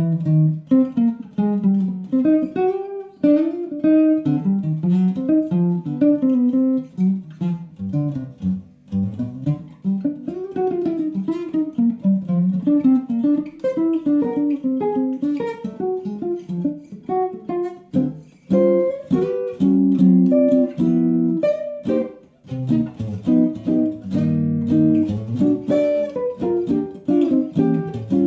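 A 1937 Gibson L-50 archtop guitar played jazz-style: flowing single-note melody lines, then from about eighteen seconds in, rhythmic chords.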